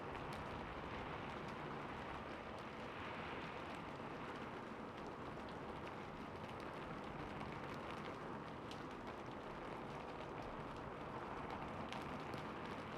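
Steady rain falling on a rooftop: an even hiss with faint scattered drop ticks.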